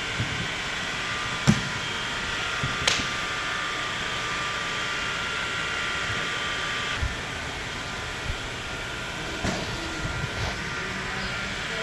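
A steady background hum with a few faint steady tones, like a fan or air conditioner, which drop out about seven seconds in. Over it come a few scattered knocks and clicks from handling the bicycle parts and packaging, the sharpest one early.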